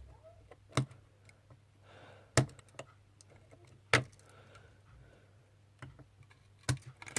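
Small sharp clicks and taps of the iPhone 6's ribbon cable connectors being unclipped from the board, four loud clicks spaced a second or two apart with lighter ticks of handling between them.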